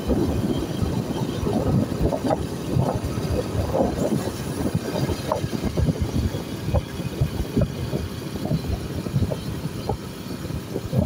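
Ride noise from a moving vehicle: a low, uneven rumble of engine and road with rapid gusty surges, typical of wind buffeting the microphone.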